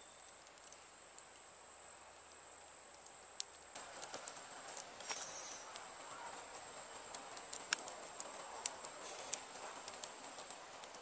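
Wood fire crackling with frequent sharp pops, growing fuller from about four seconds in.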